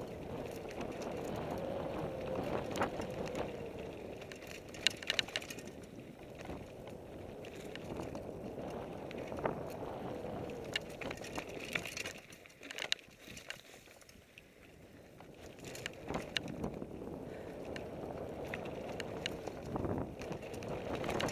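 Fuji Thrill mountain bike descending dirt singletrack: a steady rush of tyres rolling over dirt and air over the microphone, with sharp clacks and rattles every few seconds as the bike hits bumps. The rush drops away for a couple of seconds a little past the middle, then builds again.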